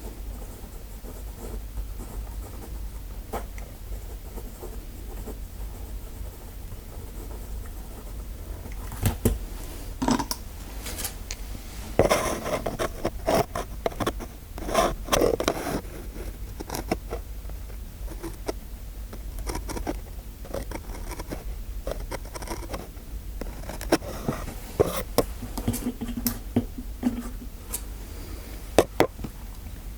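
Close-miked scraping, scratching and sharp clicks of small objects being handled in an ASMR trigger session. After a quiet stretch with a low hum, the scraping starts about a third of the way in, gets busiest in the middle, and gives way to scattered sharp clicks near the end.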